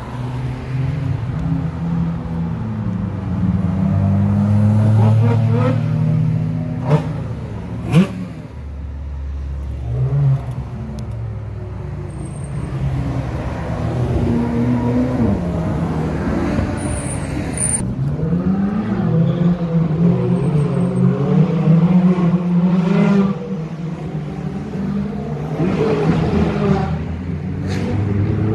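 Several Ferrari sports cars driving past in a line, their engines revving and accelerating, the engine note rising and falling as each car goes by. Two short sharp cracks about seven and eight seconds in.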